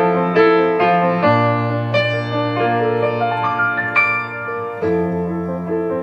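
Instrumental music: piano chords over a sustained bass note, the bass shifting lower about a second in and back up near the end.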